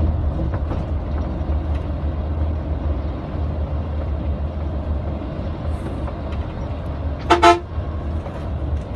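Steady low drone of a Hyundai coach's engine and road noise, heard from inside the cabin. About seven seconds in, a vehicle horn gives two quick toots.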